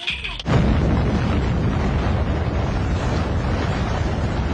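Explosion sound effect. A sudden loud rumbling blast starts about half a second in and keeps going steadily, heaviest in the bass.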